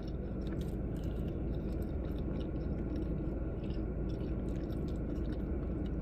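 Close-up chewing of a mouthful of soft food, with many small wet mouth clicks, over a steady low hum.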